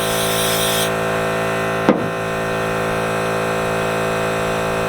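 Air compressor running steadily in the background with an even motor hum. A brief hiss sounds in the first second.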